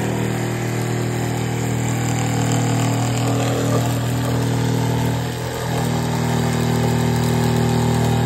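Cordless jigsaw cutting through a sheet of beadboard, its motor and blade running at a steady pitch, with a brief dip in loudness about five seconds in.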